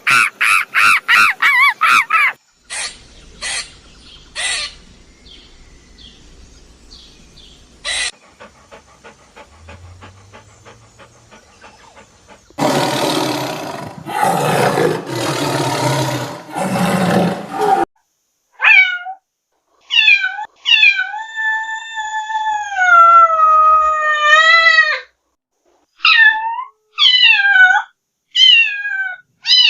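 A series of different animal calls: a quick run of short, repeated calls at the start, a loud, harsh roaring call in the middle lasting several seconds, then a cat meowing over and over, in drawn-out, wavering meows, through the last third.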